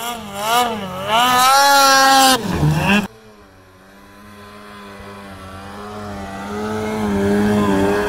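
Snowmobile engine revving up and down repeatedly through deep powder for about two and a half seconds. After a cut about three seconds in, a Lynx snowmobile's engine runs at a steady pitch, growing gradually louder as it approaches.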